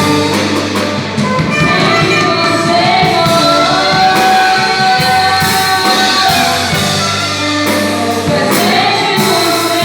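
A band playing with a singer: held vocal notes over bass and drums, loud and steady.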